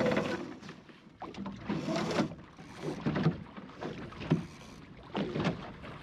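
Water splashing and rushing along the hull of a small plywood sailing skiff under way, coming in irregular surges.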